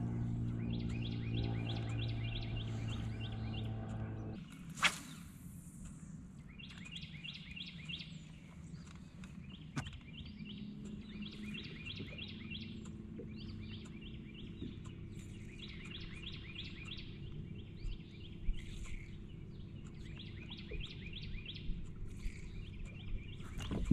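Birds singing short, rapid trills again and again every couple of seconds. A low motor hum runs for the first four seconds and then stops, and just under five seconds in there is one sharp swish.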